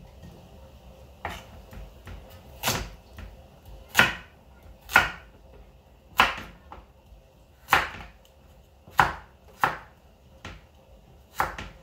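Kitchen knife cutting carrots on a wooden cutting board: single sharp knocks of the blade hitting the board, about nine of them at an uneven pace of roughly one a second.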